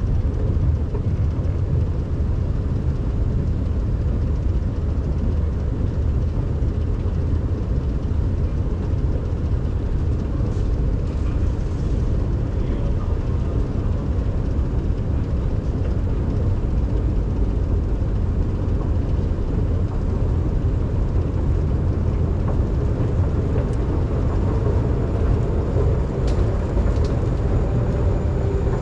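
A long escalator in a metro station running steadily: a continuous low rumble from its drive and moving steps, with a few faint clicks near the end.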